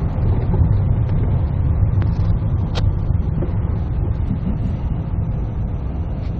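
Steady low rumble of a car's engine and tyres heard from inside the cabin while driving, with a sharp click about three seconds in.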